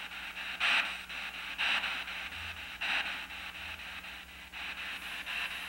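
P-SB7 spirit box sweeping the FM band: radio static chopped into rapid regular steps as it skips from station to station, with louder swells of hiss about once a second.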